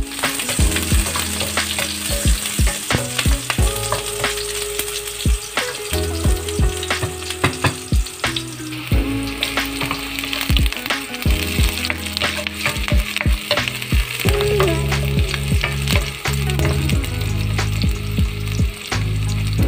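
Chopped onion and garlic sizzling in hot oil in a frying pan, a steady hiss broken by frequent short taps and scrapes of a utensil stirring.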